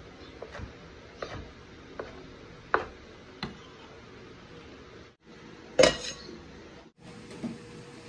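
Chef's knife slicing crisp grilled pork belly on a wooden chopping board: a string of knife taps on the board, one every half second to a second. About six seconds in comes a single louder ringing clink.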